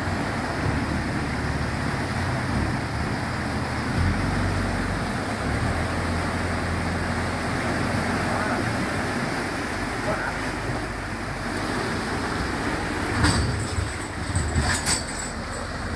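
Water rushing through a sluice gate, with the low steady running of a straw-laden wooden cargo boat's engine pushing against the current. Near the end come a few sharp knocks and scrapes as the boat's straw load passes close by.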